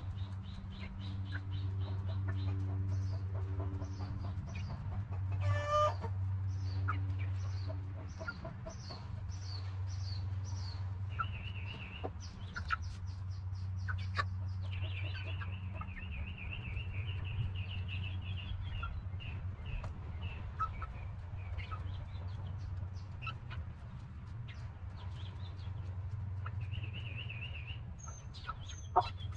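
Backyard hens and half-grown chicks clucking softly while they feed, with wild birds chirping and trilling in the background over a steady low hum.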